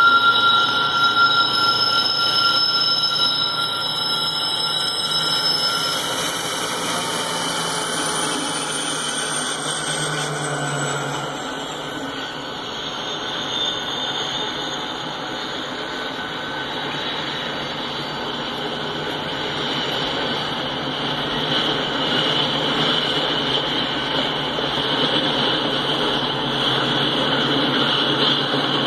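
A diesel locomotive passes, then a string of empty intermodal cars rolls by with steady wheel-on-rail rumble. High-pitched wheel squeal rings out at the start, and a high screech grows louder toward the end.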